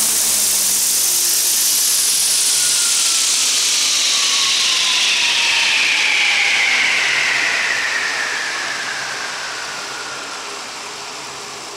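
ALZRC Devil 420 electric RC helicopter spinning down: the motor and gear whine and the rotor blade noise slide steadily down in pitch, fading over the last few seconds as the head slows.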